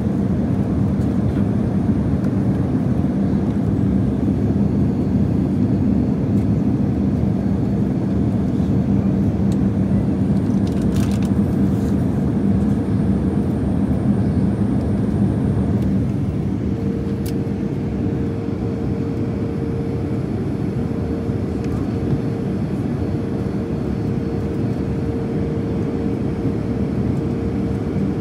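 Steady cabin noise of a jet airliner in flight: engine and airflow rumble with a low hum. About halfway through, a higher steady hum comes in and the rumble drops slightly.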